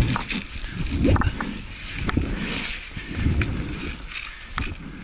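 Hurried footsteps crunching over dry leaves and twigs, with clothing and gear rustling and a few sharp knocks.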